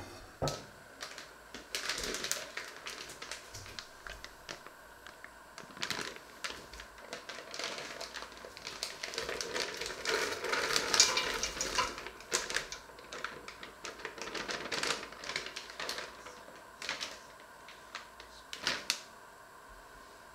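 Plastic bag crinkling and rustling as mixed vegetable pieces are tipped from it into a stainless steel pot, with scattered clicks and knocks. The pouring is loudest about halfway through.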